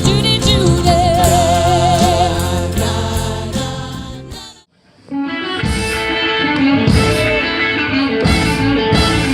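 Live band music with a singing voice fades out about halfway through, and after a brief gap a new band piece starts.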